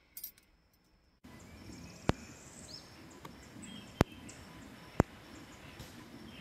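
A brief rustle of the camera being handled, then outdoor ambience with birds chirping. About two, four and five seconds in, three sharp clicks stand out as the loudest sounds.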